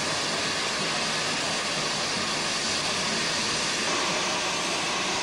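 Steady, even rushing hiss of steam from a standing steam locomotive.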